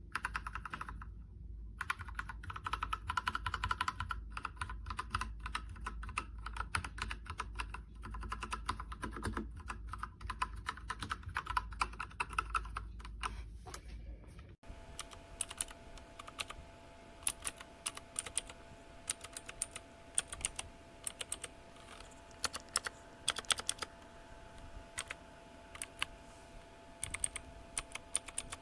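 Typing on a MageGee 75% mechanical keyboard: a fast, dense run of key clicks and clacks. About halfway through the recording changes, and the keystrokes come sparser and lighter over a faint steady hum.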